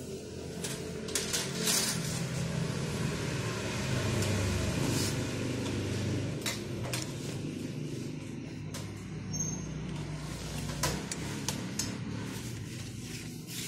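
Scattered light clicks and taps from LED backlight strips being pulled off and handled inside an opened LCD TV during a backlight replacement. Under them runs a low rumble that swells about four seconds in and then eases.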